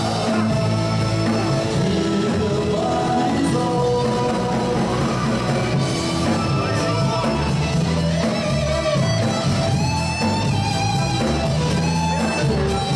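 Live band playing a Cambodian Madison dance song: a male singer's vocals and an electric guitar over drums and keyboard, with a steady beat.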